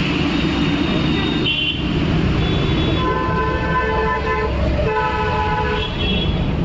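Vehicle horns honking over a steady traffic rumble, with two longer horn blasts a little past halfway and shorter, higher beeps around them.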